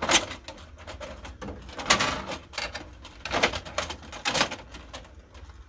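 Plastic covers of an office printer being handled and pulled off: a run of clicks, knocks and scrapes, the sharpest about two seconds in, with more knocks at three and a half and four and a half seconds.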